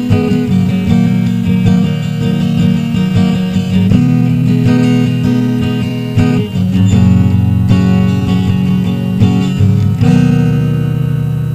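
Acoustic guitar strumming chords as an instrumental ending. A last chord is struck about ten seconds in and left to ring, fading out.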